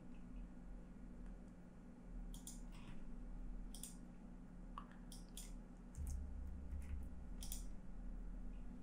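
Computer mouse clicks, about eight spread unevenly over several seconds, over a steady low electrical hum.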